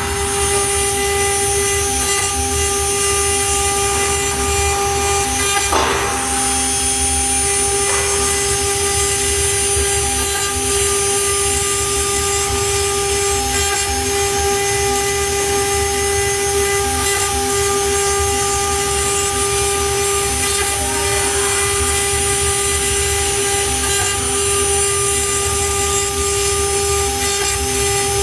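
CNC wood router running: the spindle whines steadily while a small end mill cuts a pocket into a wooden board, with a brief louder cutting surge about six seconds in.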